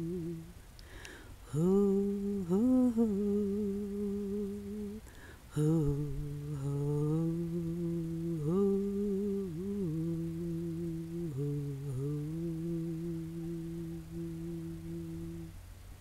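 A person humming a slow wordless tune in long held notes, sliding and dipping in pitch between them, with two short breaks for breath. The humming stops shortly before the end.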